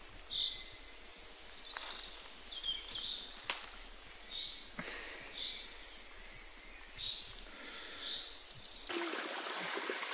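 Woodland ambience: a bird repeats a short high chirp about once a second, with a few faint clicks. About nine seconds in, the sound changes abruptly to a shallow stream trickling over rocks.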